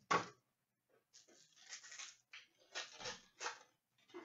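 Hockey trading cards and their pack being handled on the table: a sharp crackle at the start, then irregular bursts of rustling and sliding as the cards are gone through.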